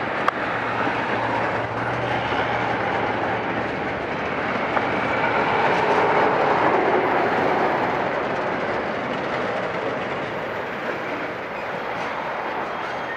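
Freight train tank cars rolling slowly past, their steel wheels rumbling and grinding on the rail in a continuous noise that swells around the middle. There is one sharp click just after the start and a low hum during the first few seconds.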